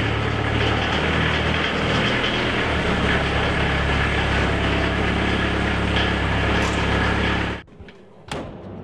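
Volkswagen T3 van engine running steadily with a low, even hum. It cuts off abruptly near the end, followed by a faint thump.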